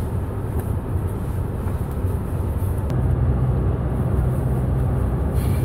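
Car driving at a steady speed: a low engine and road rumble with a steady hum that grows a little stronger about halfway through.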